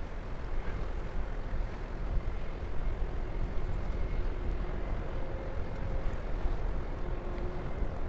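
A ship passing close by, heard as a steady low rumble with wind buffeting the microphone and faint steady engine tones coming through.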